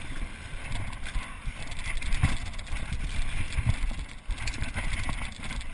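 Mountain bike running fast down a dirt and gravel trail: a steady rush of tyre noise and wind on the microphone, with a couple of knocks and rattles from the bike going over bumps.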